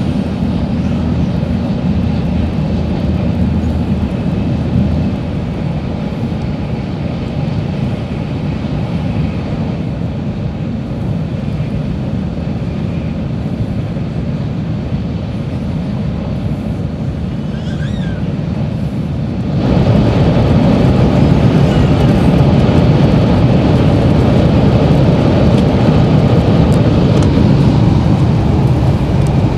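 Cabin running noise of a JR West 700 series Shinkansen at speed: a steady low rumble and rush. About two-thirds of the way in it suddenly steps up louder and stays there, as the train enters a tunnel.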